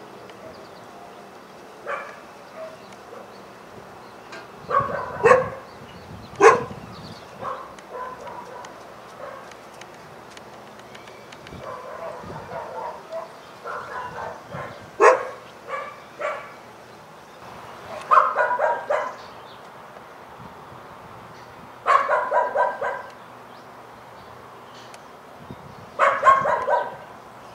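Dog barking in scattered bouts: single barks at first, then quick runs of several barks in a row later on.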